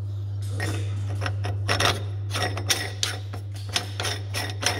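Irregular metallic clicks and scrapes of a threaded steel coilover sleeve being screwed together by hand while it is clamped in a vise, with a steady low hum underneath. The clicking starts a little under two seconds in.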